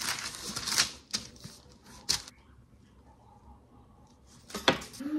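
Parchment paper rustling and crinkling under hands shaping a loaf of bread dough: a run of quick crinkles and taps in the first two seconds, then quiet, with one sharp click near the end.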